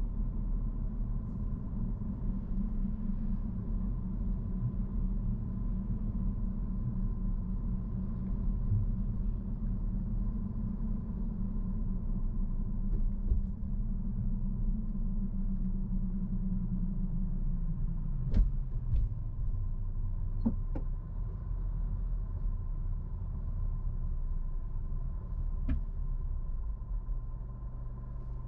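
Car driving, with a steady low rumble of road and engine noise and a faint steady whine above it. About two-thirds of the way through, the drone slides down in pitch, and a few sharp clicks follow.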